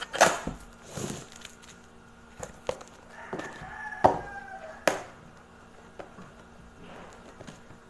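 Packing tape being picked at and peeled off a cardboard box by hand: scattered scratches, taps and knocks on the cardboard, with a short squeak of tape pulling loose in the middle.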